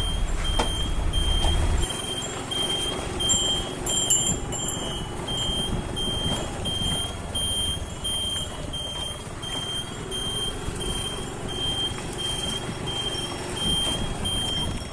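A vehicle's electronic warning beeper sounding a short high beep about twice a second, over engine and road noise. A heavy low engine rumble drops away about two seconds in.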